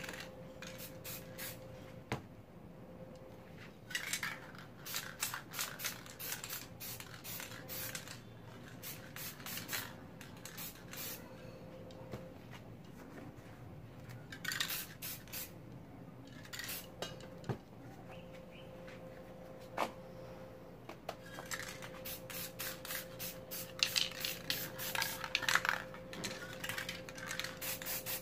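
Aerosol spray paint cans hissing in many short bursts and a few longer sprays, with now and then a sharp clink of a round metal lid or plate being set down on the painting as a mask.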